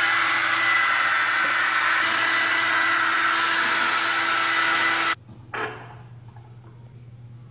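Handheld wall-mounted hair dryer blowing steadily with a thin whine, stopping abruptly about five seconds in. A faint low hum remains after it.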